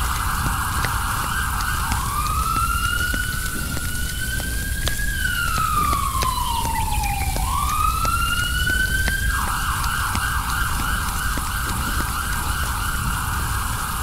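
Electronic siren going between a fast warbling yelp and a slow wail: about two seconds in it changes to a long rise, fall and rise in pitch, and about nine seconds in it goes back to the fast yelp.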